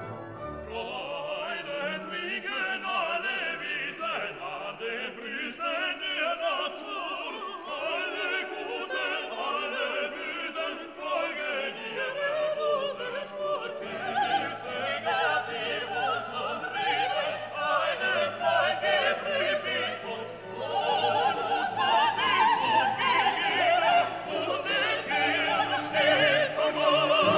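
Background music: classical operatic singing with an orchestra, growing louder in the second half.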